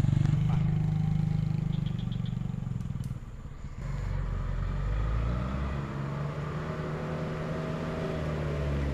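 An engine close by runs steadily, then cuts out about four seconds in. After that a small diesel truck's engine is heard labouring along the muddy road, its revs climbing in steps.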